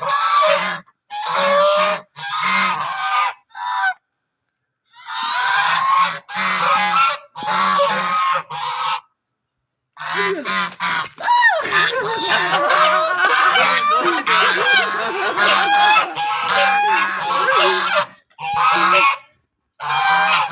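A group of birds calling loudly in repeated harsh bursts, as an alarm against anyone coming closer. The calls break off abruptly into silence twice, about four and nine seconds in.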